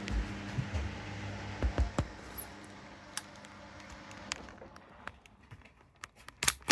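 Hoover washing machines running just after the start of a cycle: a steady hum with a few low knocks, which drops away about four and a half seconds in, leaving scattered sharp clicks, the loudest near the end.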